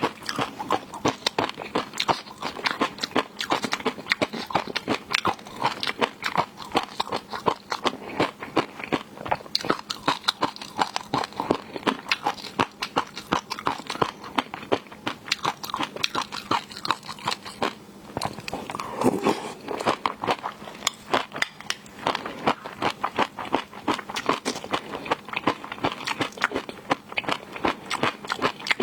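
Close-miked eating of seafood: continuous biting and chewing with many sharp, crunchy, wet clicks and snaps.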